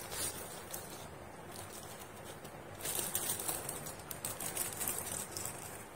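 Crinkling and rustling of small plastic packets of craft beads and sequins as they are handled and set down, busier from about three seconds in.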